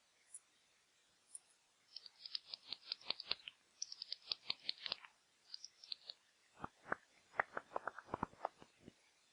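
Bat echolocation calls made audible, as a bat detector renders them: runs of rapid dry clicks, several a second, with short pauses between runs.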